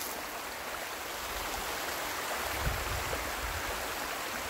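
Shallow woodland creek running and rippling: a steady, even rush of water.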